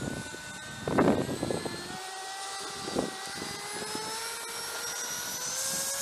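Electric ducted fan of a 70 mm model jet whining as it spools up for takeoff, its pitch climbing slowly and steadily. Wind buffets the microphone about a second in.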